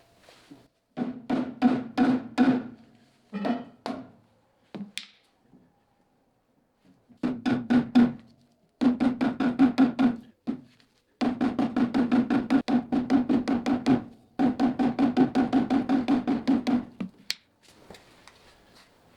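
Rapid, evenly spaced metal strikes in runs of up to about three seconds, with a steady ringing tone: working a stuck torsion bar loose from the 1956 VW Beetle chassis. The runs are separated by short pauses.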